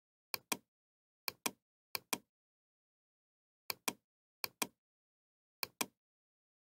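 Computer mouse clicking: six quick pairs of sharp clicks spread across a few seconds, with dead silence between them.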